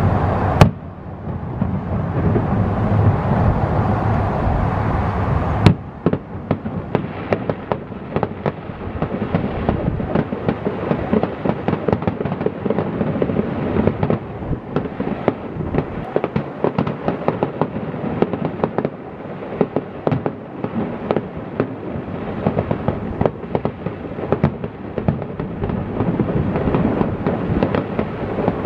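Aerial fireworks shells bursting: a sharp bang under a second in, a rolling rumble, another sharp bang near six seconds, then a dense run of rapid crackling pops for the rest.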